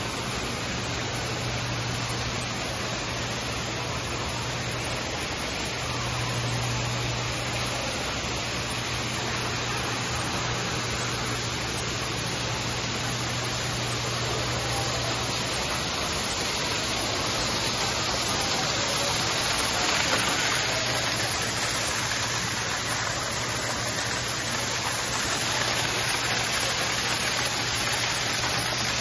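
Steady rushing of a waterfall splashing down a rock face, growing slightly louder in the second half, with a steady low hum underneath.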